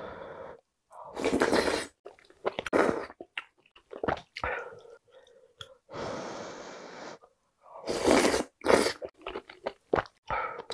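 Close-miked eating sounds: several loud slurps of beef-rib soup broth and glass noodles from a ladle, one drawn out for about a second in the middle, with quieter chewing and wet mouth clicks between.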